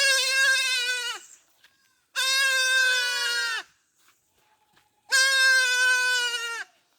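Goat bleating: three long, high calls of about a second and a half each, roughly two seconds apart, each dropping in pitch at its end.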